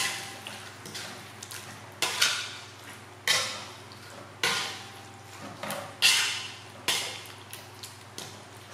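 Metal spatula scraping and knocking against an aluminium wok as pieces of fish in a thick paste are stirred and turned, one stroke every second or so.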